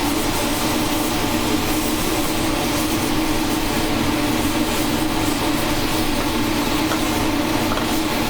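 Steady roar of a glassworking hand torch's big multi-jet flame, with a steady hum underneath.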